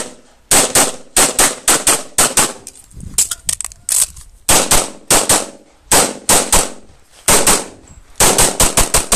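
Rapid handgun shots in a practical-shooting stage, mostly fired in quick pairs a fraction of a second apart, with short gaps between groups as the shooter moves from target to target; a couple of dozen sharp reports in all, ending in a fast run of shots near the end.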